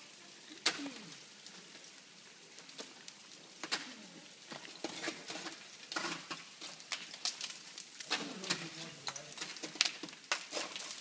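Ice axe picks and crampon points striking waterfall ice as a climber leads a steep ice pillar: sharp strikes at irregular intervals a second or a few apart, some much louder than others.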